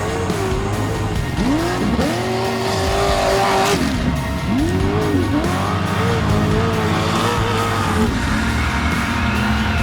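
Off-road race vehicle engines revving hard, their pitch climbing, holding and dropping again several times, over a music track.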